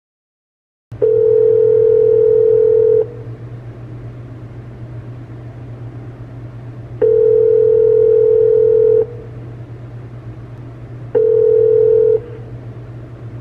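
Telephone ringback tone (outgoing call ringing on the line): two steady two-second rings about four seconds apart, the third cut short after about a second, over a constant low line hum. Before the first ring there is about a second of silence.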